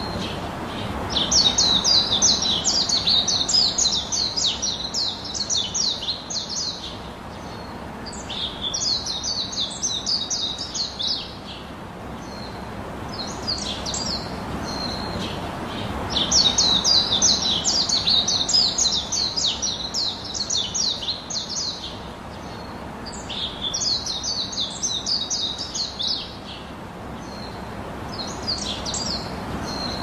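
A songbird chirping in fast runs of high notes, in phrases a few seconds long with short pauses between, over a steady background rush.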